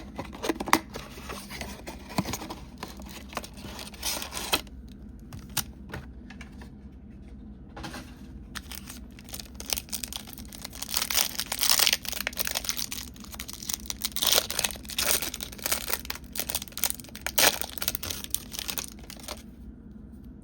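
A Topps Chrome basketball hanger box being torn open by hand, with cardboard tearing and plastic wrapping crinkling. The rustling comes in two long stretches with a quieter pause between them, and stops just before the end.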